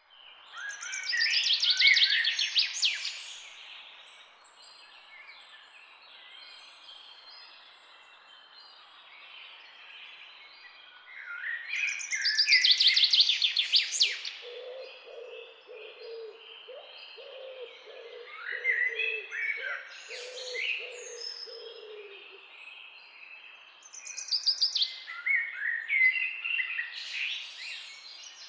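Songbirds singing. A loud, fast trilling song phrase comes three times, about 11 seconds apart, with softer chirps between the phrases. In the middle stretch a lower-pitched call is repeated several times.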